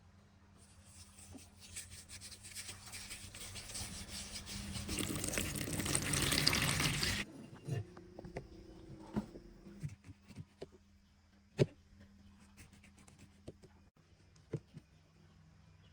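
Water running into a vessel, getting louder, then stopping abruptly about seven seconds in. After that come scattered light clicks and knocks, with one sharper knock about halfway through the rest.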